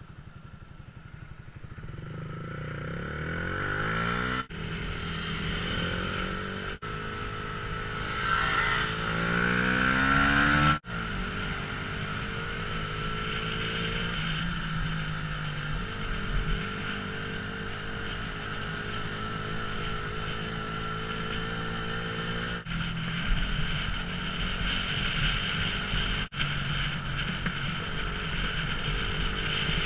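Yamaha YZF-R125 single-cylinder engine heard from the rider's seat. It accelerates with rising pitch through the gears in the first ten seconds, then runs at a steady cruise on a cobbled road.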